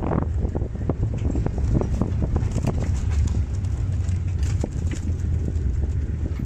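Open safari game-drive vehicle driving over a rough dirt track: a steady low rumble with frequent knocks and rattles.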